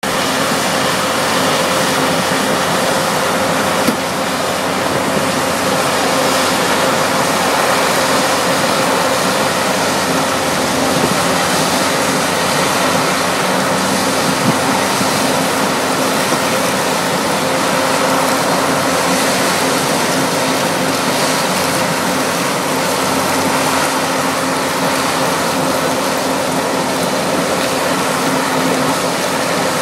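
A McCloskey mobile crusher and a wheel loader running together at a rubble-crushing site. There is a steady diesel engine hum under a dense, constant mechanical noise.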